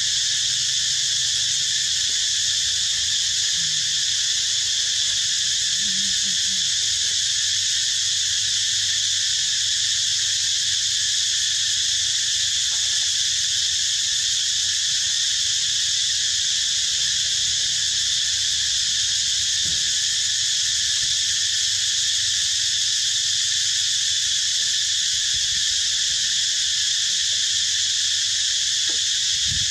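Steady insect chorus: a continuous high-pitched buzzing hiss that holds unchanged throughout.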